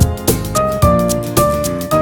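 Background music: a bright, upbeat tune with a steady beat and notes struck about twice a second.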